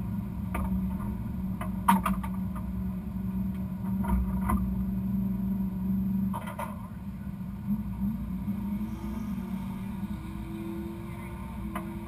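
Drag race car's engine idling steadily, heard from inside the cabin, with a few sharp clicks and knocks. About eight seconds in, a faint rising tone joins the idle.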